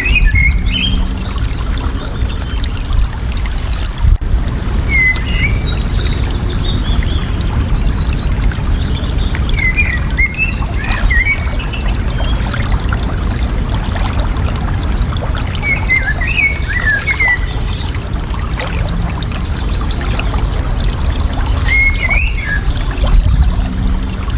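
Steady rush of flowing, trickling water, with a songbird repeating a short warbled phrase about every five to six seconds and a few higher chirps between. One brief knock about four seconds in.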